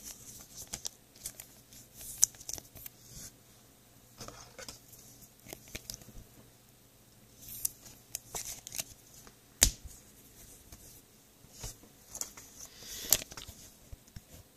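Trading cards and plastic card sleeves being handled on a tabletop: scattered soft clicks, rustles and slides, with a sharper click near the middle.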